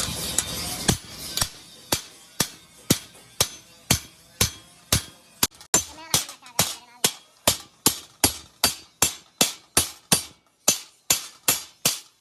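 Hammer blows on metal in a steady rhythm, a little over two strikes a second, each sharp with a brief metallic ring. A dense hissing noise fades out in the first second.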